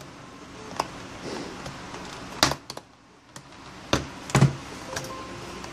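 Plastic clips of a Samsung Galaxy Tab 2 10.1's back cover clicking free as a metal pry tool is worked along the edge of the frame: a handful of short sharp snaps, the loudest about two and a half and four seconds in.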